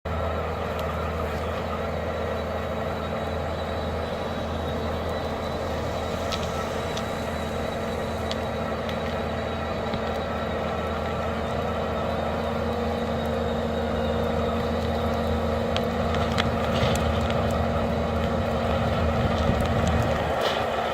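Skid steer engine and hydraulic MeriCrusher forestry mulcher running steadily under load, with scattered sharp cracks as the rotor hits wood and debris. The sound grows slightly louder near the end.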